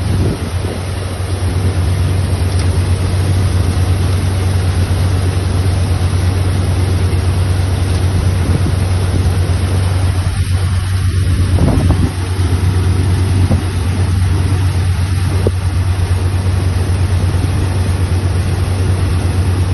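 Bakshish 930 combine harvester running steadily with a strong low engine hum while its grain tank is being emptied.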